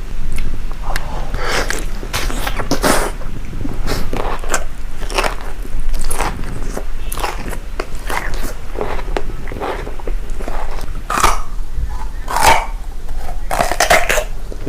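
Close-miked mukbang eating sounds: a person biting and chewing food, with many short, sharp bites at an uneven pace.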